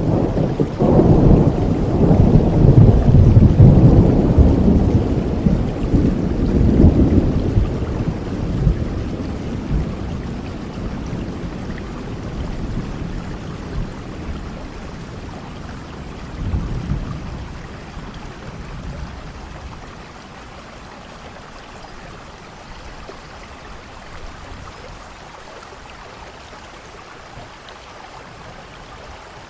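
Steady rain falling, with a long roll of thunder that swells about a second in and slowly fades over several seconds, and a shorter low rumble of thunder later on.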